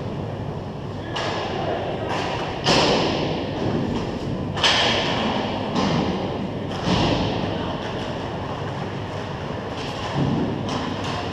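Hockey play in a large indoor rink: a string of sharp stick-and-puck impacts, the loudest about two and a half and four and a half seconds in, each ringing on in the echoing hall over a steady rumble of play.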